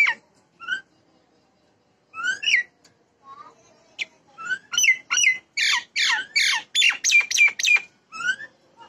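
Myna calling: a few scattered whistled and squawky notes, then from about four seconds in a fast run of chattering calls that stops about a second before the end.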